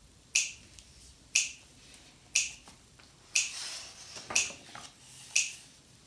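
Finger snaps keeping a steady beat, about one snap a second, counting in the song.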